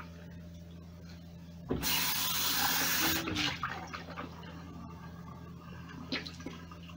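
A gush of salt water splashing into a bathroom sink for about a second and a half, starting sharply about two seconds in, then a few small splashes.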